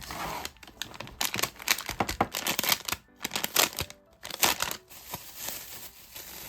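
Plastic packaging crinkling and rustling in quick, irregular handfuls as it is handled and opened, with short pauses about three and four seconds in.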